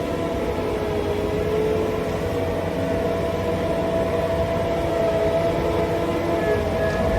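A machine running steadily, a low rumble with a continuous hum.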